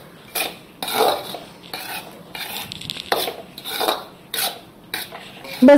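A perforated steel spatula scraping and stirring coarse wheat flour as it roasts in a metal kadhai. The strokes are short, irregular and scraping.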